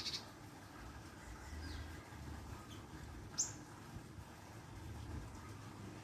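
Glatik (gelatik) calling in short, high chirps: a quick run of chirps right at the start, a short down-slurred note just under two seconds in, and one sharp, loudest chirp about three and a half seconds in, over a low background rumble.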